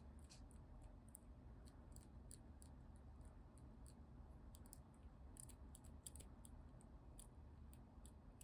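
Near silence over a low hum, with faint, scattered light clicks and taps from makeup tools and cosmetic containers being handled close to the microphone, more of them in the middle.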